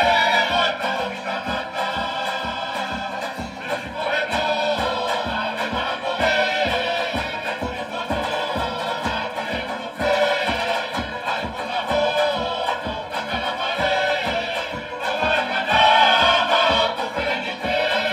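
Live Tongan tau'olunga music: a group of voices singing together over a steady, even beat that accompanies the dance.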